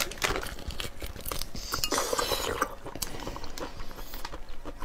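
Close-miked eating sounds of a cooked spiny lobster piece being bitten into and pulled apart by hand: scattered sharp clicks and crackles of shell, with short scraping noises.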